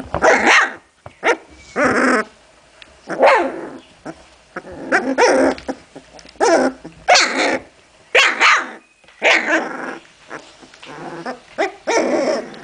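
Young Hungarian vizsla puppies calling out as they play together, a dozen or so short cries one after another, about one a second.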